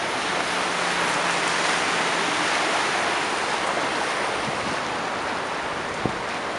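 Rain-swollen spruit in flood, its fast brown floodwater rushing with a steady, even noise after heavy rains.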